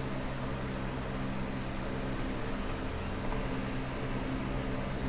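Steady low hum with an even hiss: continuous background machine noise in the room, with no distinct events.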